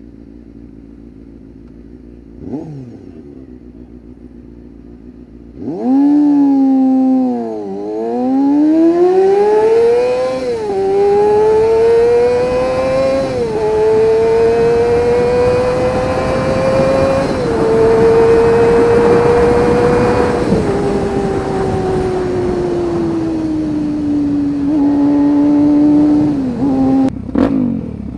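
Motorcycle engine ticking over with one quick blip of the throttle, then accelerating hard through the gears: the pitch climbs in each gear and drops at each of several upshifts. It then winds down slowly as the bike slows, with a couple of short changes in revs near the end.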